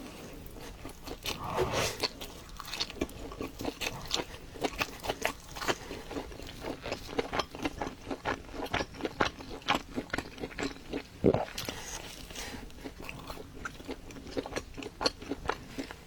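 A person eating pizza close to the microphone: biting and chewing crust in a dense run of short crunchy clicks, with one louder bite about eleven seconds in.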